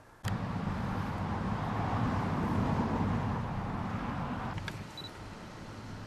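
Outdoor ambience with a passing motor vehicle: a rumbling noise that cuts in suddenly, swells for a couple of seconds and then fades. A couple of faint clicks come near the end.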